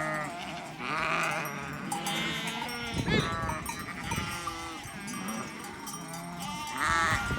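A flock of sheep bleating, many calls at different pitches overlapping one another, with a brief knock about three seconds in.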